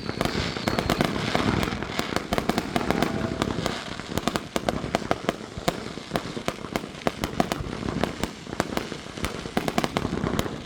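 Fireworks going off in rapid succession: a dense run of sharp cracks and pops, several a second, with heavier low booms in the first few seconds.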